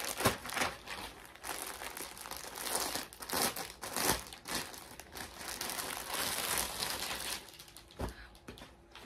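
Clear plastic garment polybag crinkling and crackling in irregular bursts as a kurta set is pulled out of it and handled, quieting in the last second or so.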